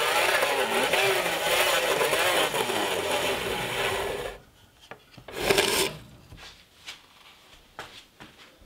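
Blade of a hand-cranked band saw cutting through a pine board: a steady rasping saw noise whose pitch wavers with the cranking. About four seconds in the cutting noise stops, followed by one short burst of the same noise and then faint clicks.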